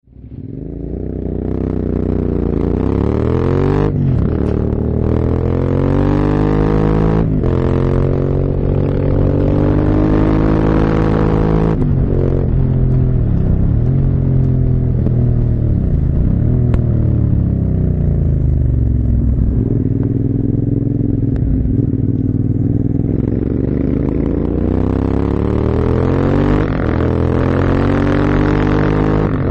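Motorcycle engine on a road ride, accelerating up through the gears with a brief break at each shift about four, seven and twelve seconds in, then dropping in revs as it slows and pulling hard again near the end.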